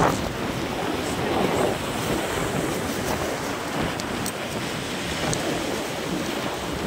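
Rough sea: waves surging and breaking in a steady wash of surf, with strong wind buffeting the microphone.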